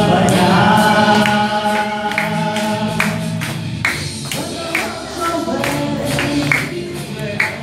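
A small group singing together into microphones, with hand claps keeping the beat about once a second from about three seconds in.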